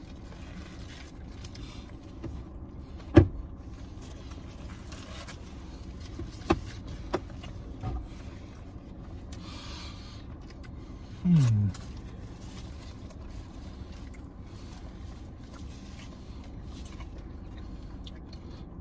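Steady low hum inside a car cabin, with a sharp click about three seconds in and a few faint ticks. About eleven seconds in, one of the eaters gives a short "mm" that falls in pitch.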